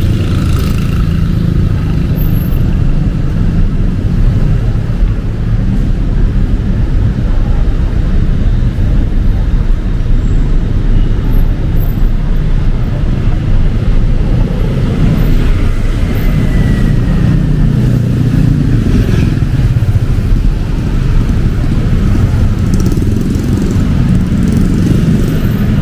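City street traffic: a steady, loud rumble of car and motorcycle engines.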